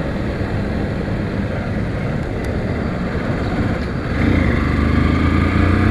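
Motorcycle engine running under way, with steady wind noise. About four seconds in, the engine gets louder and its pitch climbs slightly as the rider accelerates.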